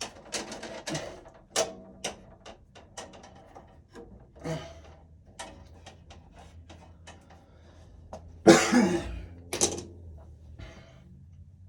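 Irregular small clicks and taps of wires and tools being handled inside a breaker panel as a ground wire is pushed into place, two or three a second, with a louder rasping burst about eight and a half seconds in.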